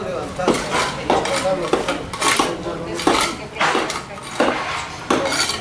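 Metal tools, a shovel blade among them, striking and scraping a freshly laid cold-mix asphalt pothole patch as it is tamped and worked down: a string of sharp metallic clinks, irregular, about one to two a second.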